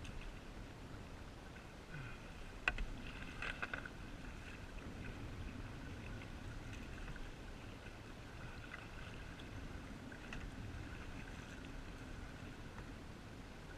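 Paddling a small boat: a paddle dipping and water moving against the hull, with a sharp knock about two and a half seconds in.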